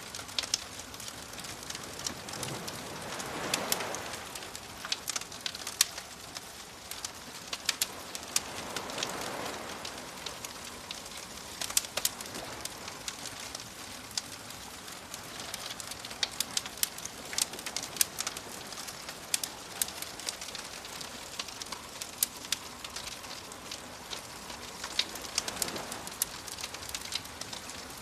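Wood fire crackling with frequent sharp pops and snaps, over a soft steady hiss, with gentle waves washing in three times.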